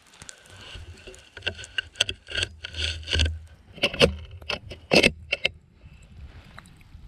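A series of sharp knocks and rustling clatter, the loudest about five seconds in, over a low rumble of wind on the microphone.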